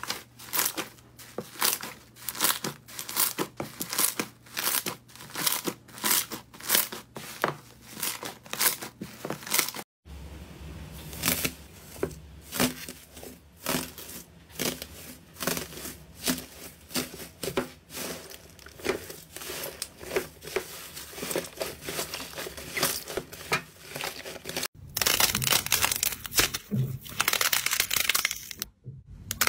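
Slime being worked by hand, crackling and popping. A red slime gives sharp pops about twice a second as it is stretched. After a cut, a slime covered in crumpled gold foil crinkles densely as it is pressed, and near the end a cloud slime tears with a thick, continuous crackle.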